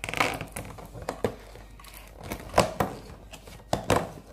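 A cardboard advent calendar compartment is opened and its contents handled: crinkling and rustling with a series of sharp clicks and taps.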